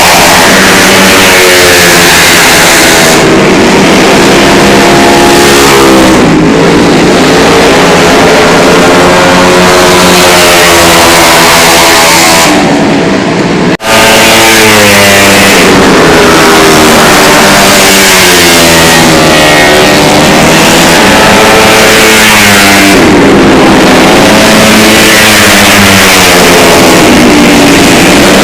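Tuned 130 cc automatic scooter engines revving hard, their pitch rising and falling again and again, very loud. There is a brief sudden break about halfway through.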